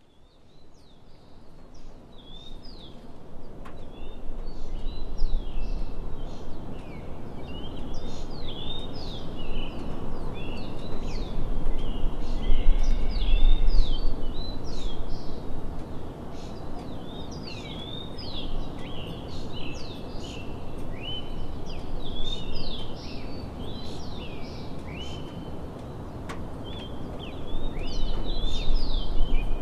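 Many birds chirping and calling in quick, repeated short notes over a steady outdoor hiss, fading in over the first few seconds, with a low rumble now and then.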